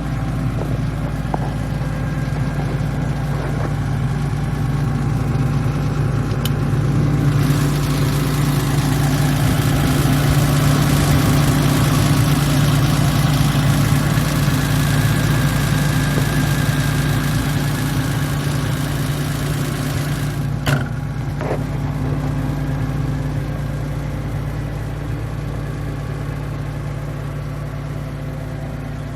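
Atlas 190 LC tracked excavator's diesel engine running steadily. About a quarter of the way in it grows louder, with a rushing noise on top. About two-thirds through there is a single sharp knock, after which it eases back down.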